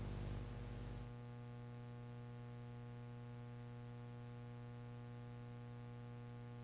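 Faint, steady electrical mains hum made of several steady tones under a low hiss. The hiss is a little stronger for about the first second, then only the even hum remains.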